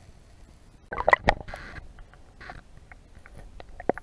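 Sharp knocks and clicks heard underwater through an action camera's housing as the rig is pulled through the water. A cluster of loud knocks comes about a second in, followed by short rushes of water noise and scattered lighter clicks, with one sharper click near the end.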